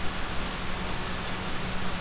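Steady hiss of open-microphone noise in an online classroom's audio stream, with a faint low hum underneath.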